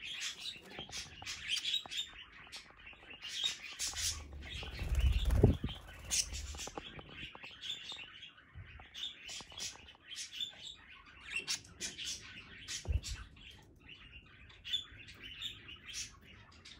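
Budgerigars chattering and chirping in quick, continual short calls. About five seconds in a louder burst of wing flapping and a low bump stands out, with another brief knock near thirteen seconds.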